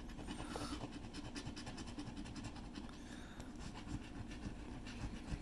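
A coin scratching the coating off a paper scratch-off lottery ticket: faint, uneven scraping strokes.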